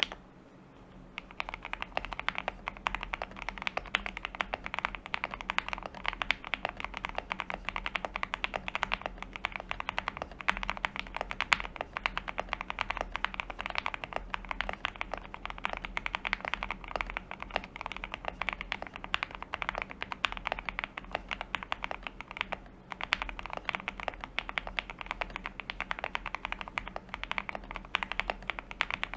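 Fast, continuous typing on a custom Akko SPR67 mechanical keyboard: lubed Banana Split linear switches on a POM plate with case and plate foam, under PBT Cherry-profile keycaps, giving a soft, "creamy" keystroke sound. The typing starts about a second in and pauses briefly about three-quarters of the way through.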